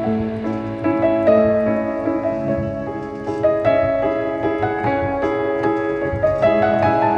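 Background piano music: a melody over chords, notes changing every fraction of a second.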